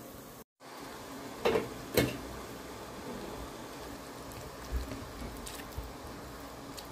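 Panela syrup simmering in a pot around fried torrejas: a steady low bubbling. Two short sharp knocks come close together about a second and a half in.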